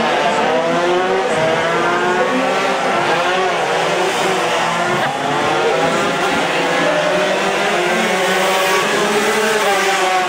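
Two-stroke Yamaha RX-King drag bikes of the 140 cc class racing down the strip at high revs. Several engine notes rise and fall in pitch over and over.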